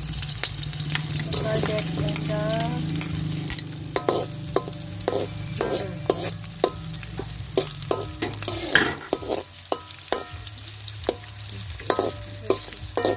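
Onion, garlic and ginger sizzling in hot oil in a cooking pan as they are sautéed, with a utensil stirring and knocking against the pan. The hiss of frying is steady, and the knocks come thick and fast from about four seconds in, each ringing briefly off the metal.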